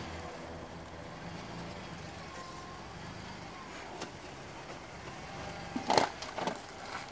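Lexus RX330's V6 engine running as the SUV drives slowly over rough ground, a steady low drone. A brief voice cuts in about six seconds in.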